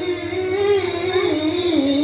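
A single melodic line, most likely one voice chanting, heard through a PA sound system. It holds a note, ornaments it with small wavering turns, and slides down to a lower held note near the end.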